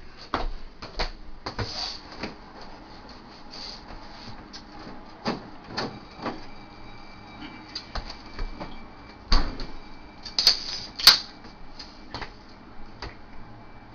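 Refrigerator being rummaged through: a string of clicks and knocks of bottles and cans on the door shelves, then a heavier thump as the fridge door shuts about nine seconds in. Sharp clicks with a short hiss follow a second later as a beer can is cracked open.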